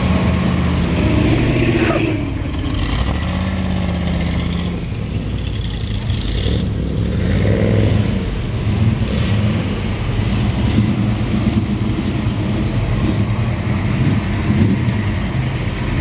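Engines of classic American cars and muscle cars running at low speed as they drive past one after another, with a steady low rumble.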